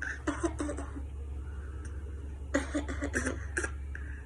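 Baby making short fake coughs in two bouts about two and a half seconds apart, over a steady low hum.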